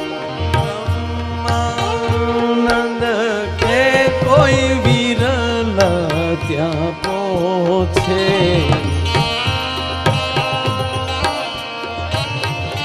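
Live Indian devotional folk music: tabla and dholak keep a steady beat under a harmonium and a wavering, ornamented lead melody, an instrumental interlude between sung lines of a bhajan.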